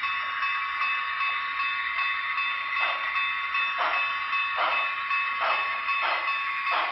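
Sound system of a Broadway Limited model of C&O 4-8-4 steam locomotive #614 playing steam chuffs over a steady high tone. The chuffs begin about three seconds in and come steadily faster as the locomotive gathers speed.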